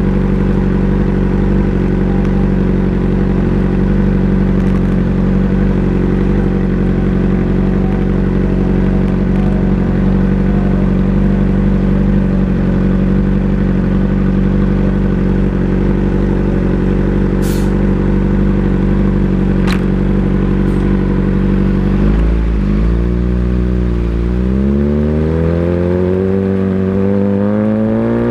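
Motorcycle engine idling steadily, then near the end the revs dip briefly and climb, the pitch rising steadily as it accelerates.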